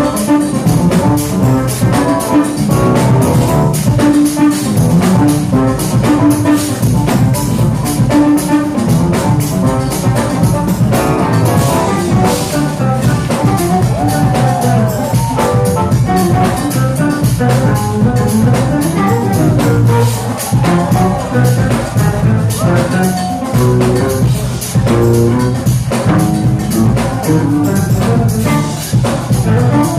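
Jazz-fusion band playing live at full volume, with drum kit, bass and brass driving a steady groove.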